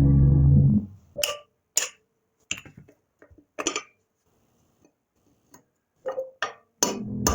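Sharp metal knocks and clinks from hand tools working off a wheel hub's center cap and hub bolt, irregular and spaced out, with a low steady hum in the first second and again near the end.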